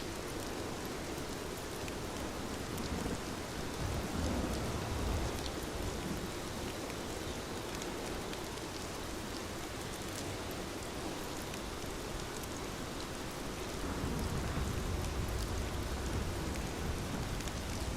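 Steady rainfall, with a low rumble swelling about four seconds in and again near the end.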